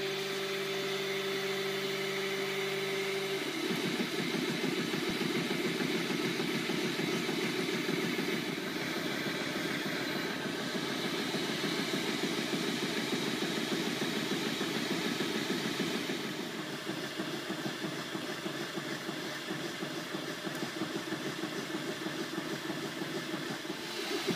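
FDM 3D printer running a print: the stepper motors driving the print head sing a steady held pitch for the first few seconds, then change to a fast, fluttering buzz for the rest of the time. A steady hiss from the print head's cooling fan runs under it.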